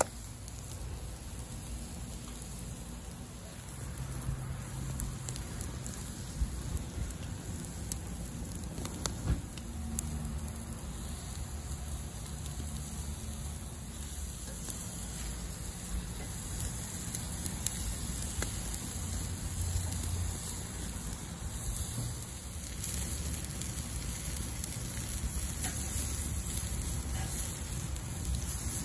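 Marinated chicken sizzling over high heat on a charcoal grill: a steady hiss with a few sharp crackles and pops.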